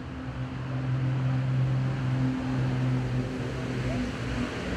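A steady low engine hum, with its pitch holding and its level swelling slightly in the middle, over a noisy outdoor background.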